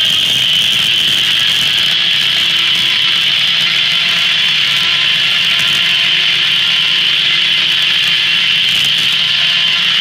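Large blade of an 1880s steam-powered circular sawmill cutting lengthwise through a big red elm log, with a steady, high-pitched whine of the saw in the cut.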